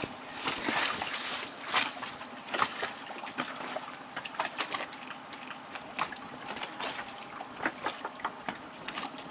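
Water lapping and sloshing against a boat's hull, with irregular small splashes and ticks.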